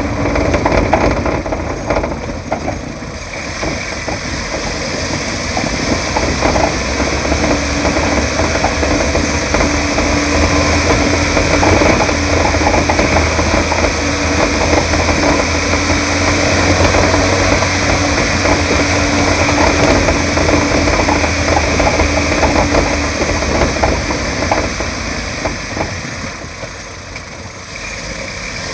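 Kia Cerato driving on the road, heard through a microphone in the engine bay: steady engine and road noise with frequent small knocks and rattles from the right front suspension. The knocking is the sign of a blown shock absorber leaking oil.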